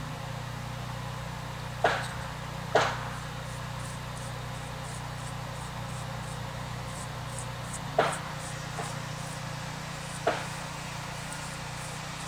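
Chip brush worked in a small can of paint and dabbed onto a cast-iron exhaust manifold, giving four sharp taps about two, three, eight and ten seconds in, over a steady low hum.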